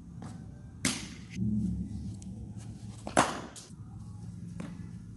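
Sharp knocks of a hard cricket ball on bat and pitch in an indoor net: one about a second in, a louder one past the three-second mark, and another at the very end.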